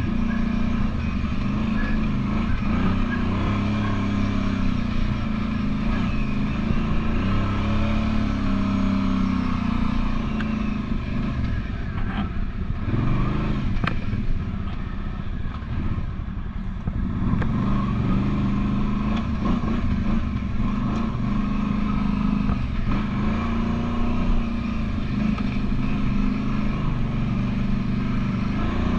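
Kawasaki Brute Force 750 ATV's V-twin engine running under way on a trail, its pitch rising and falling with the throttle. The throttle eases off for a few seconds about halfway through, then opens up again.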